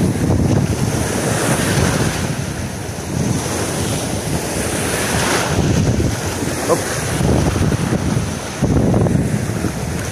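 Sea waves washing in and breaking over shoreline rocks, surging and easing every couple of seconds, with strong wind buffeting the microphone.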